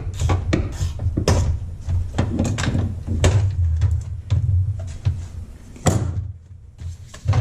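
Irregular knocks, clunks and clicks of plastic and metal as a Toyota AE86 Corolla's dashboard is worked loose in the car.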